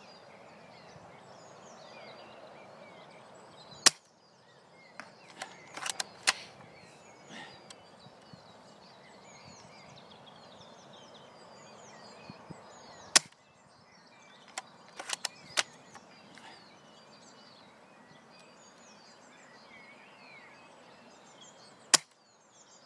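Novritsch SSG24 spring-powered bolt-action airsoft sniper rifle firing three shots about nine seconds apart, each a single sharp crack. A second or two after the first two shots comes a short run of lighter clicks and clacks. Birds chirp faintly throughout.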